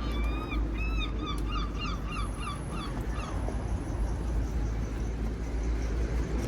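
A bird calling: a quick run of short, repeated pitched notes over the first three seconds or so, above a steady low rumble.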